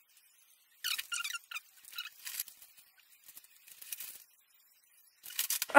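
A protein bar being chewed close to the microphone: short, wet mouth clicks and squeaks in a few scattered clusters. Near the end comes a quick run of clicks, then the start of a loud breath.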